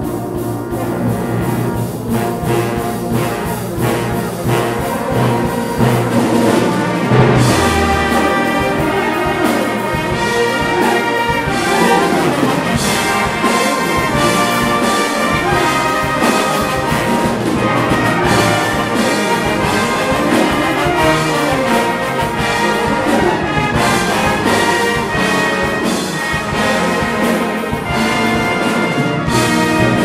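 Full brass band playing live, with cornets and trombones over a steady rhythmic pulse. The music builds louder and busier over the first several seconds.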